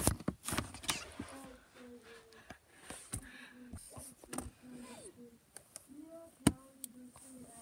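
Butter slime being poked and pressed by hand against a plastic laundry basket: a few sharp clicks and pops, the loudest at the very start and about six and a half seconds in.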